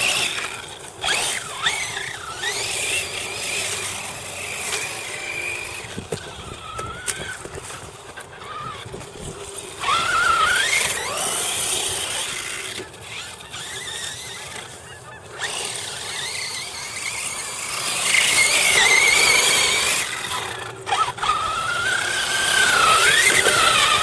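RC car's motor whining, its pitch rising and falling as the throttle is worked, over a steady hiss of tyres on dirt.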